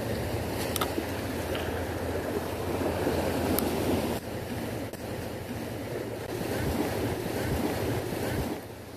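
Small sea waves washing and breaking over a rocky shoreline, with wind rumbling on the microphone. A couple of sharp clicks stand out in the first few seconds.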